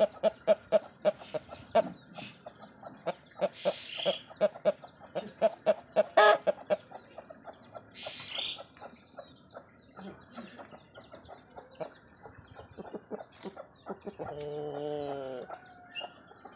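Chickens clucking in quick short pulses, several a second, thinning out after the first half. About fourteen seconds in comes one longer, drawn-out call that falls slightly in pitch.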